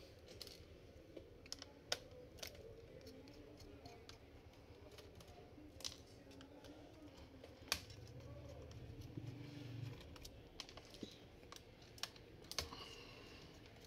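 Faint, irregular clicks and ticks of a small screwdriver and screws being worked out of a laptop's chassis, with a few sharper clicks among them.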